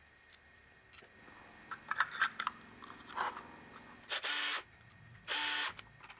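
Cordless drill/driver running in two short bursts, about a second apart, driving screws into a Battery Tender Jr charger's plastic case. Before that come scattered clicks and taps of the plastic housing being handled and fitted together.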